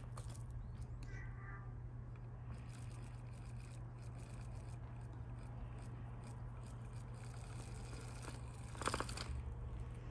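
British Longhair kittens playing: scattered light scratches and clicks of claws and paws over a steady low hum, with a brief high squeak about a second in and a short, louder rasping burst near the end.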